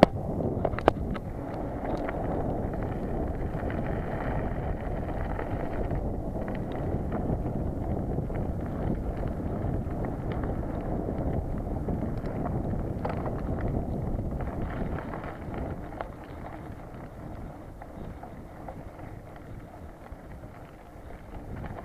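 Wind buffeting an action camera's microphone and tyre rumble from a mountain bike rolling fast down wet asphalt, as a steady rushing noise. There is a sharp click about a second in, and the noise eases off about two-thirds of the way through.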